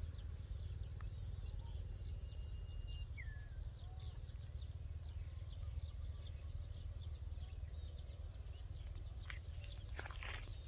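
Faint outdoor ambience: a steady low rumble with a few short, thin bird chirps and faint insect ticking. A couple of sharp clicks come near the end.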